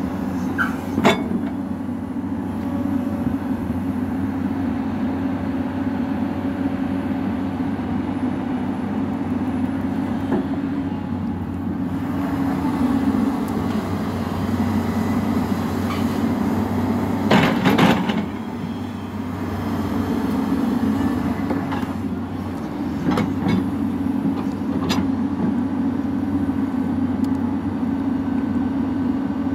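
Hyundai 215 crawler excavator's diesel engine running steadily under load while it digs wet, muddy soil. A few sharp knocks from the bucket and arm stand out, the loudest about a second in and again about 17 seconds in.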